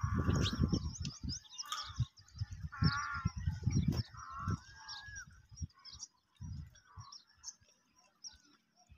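Birds calling and chirping, with a few short, honk-like calls in the first half. Low rumbles and thumps come through the first four seconds, then only faint chirps.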